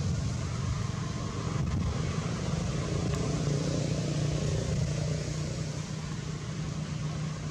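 A motor vehicle's engine running with a steady low hum, over outdoor background noise.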